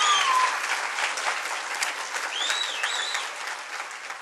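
Audience applauding at the end of a speech, with a few short high whistles over the clapping. The applause gradually dies down.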